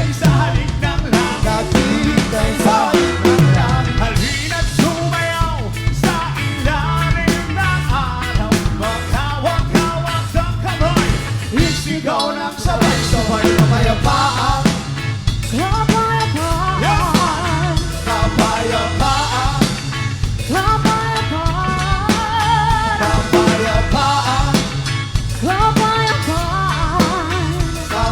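Live reggae band playing: drum kit and bass keeping a steady groove with a melody line over the top.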